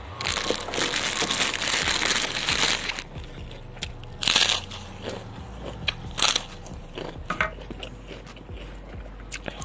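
Close-up crunching of crisp white crackers being bitten and chewed: a long stretch of dense crunching, then two short, loud bites about four and six seconds in.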